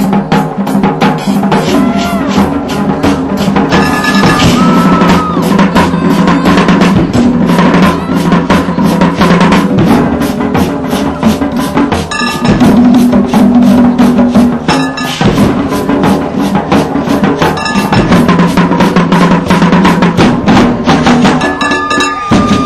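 Drum and bugle corps playing loud: brass horns holding full chords over a dense, driving stream of marching and front-ensemble percussion hits.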